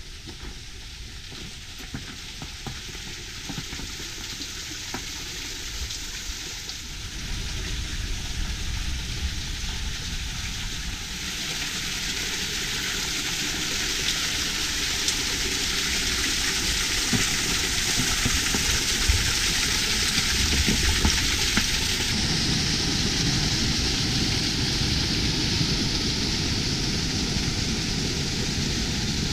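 Steady hissing rush of water spattering and falling behind a frozen waterfall's ice curtain, with a low rumble underneath, growing louder over the stretch.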